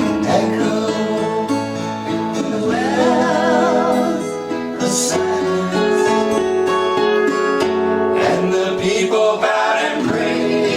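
Acoustic guitar music with singing: guitar notes ring under long held sung notes that waver in pitch.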